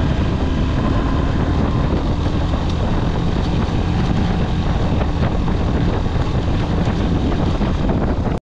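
Small motorcycle engine running steadily while riding over a gravel track, with wind rumbling on the microphone. The sound cuts off suddenly at the very end.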